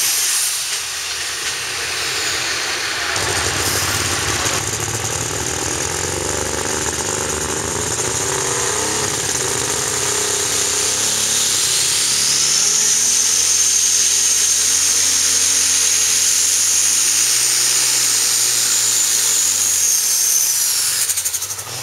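Light Super Stock pulling tractor's turbocharged diesel engine, with a loud hissing rush for the first few seconds, then the engine running at shifting revs. About halfway through a high turbo whine rises, holds steady, and falls away near the end.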